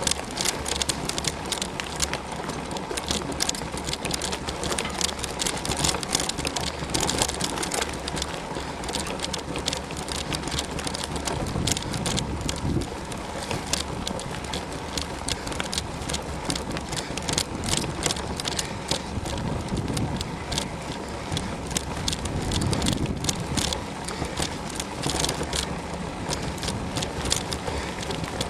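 Mountain bike ridden along a woodland singletrack: a steady rumbling noise, with dense, irregular clicks and rattles from the bike over rough ground.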